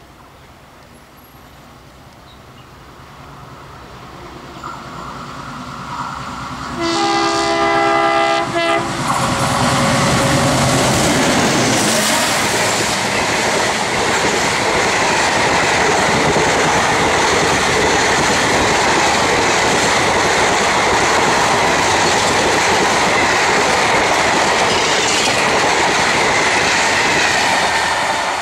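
An Indian Railways diesel-hauled passenger train approaches, growing louder. The locomotive sounds its horn for about two seconds, about seven seconds in. Then the coaches pass close by with a loud, steady rumble of wheels on rail and a clickety-clack over the rail joints.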